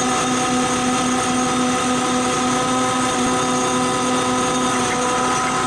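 A machine engine running steadily at constant speed, a loud even hum with a slight regular pulsing.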